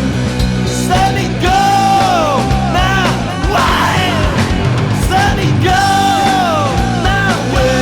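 Rock music: a full band with drums, with a singer coming in about a second in and holding long notes.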